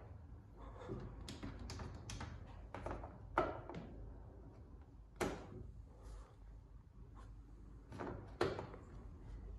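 Control panel of a Bosch Maxx WFO 2480 washing machine clicking as the program dial is turned through its settings and the option push-buttons are pressed: a string of irregular clicks, with sharper ones about three and a half, five and eight and a half seconds in.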